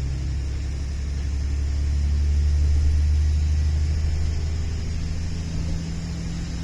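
Passenger train running, heard from inside the carriage: a steady low rumble that swells a couple of seconds in and then eases off.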